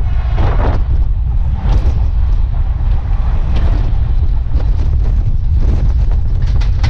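Heavy wind buffeting on the microphone of a camera held out of a passenger train coach moving at speed, over the coach's running rumble. Scattered short clanks break through every second or two.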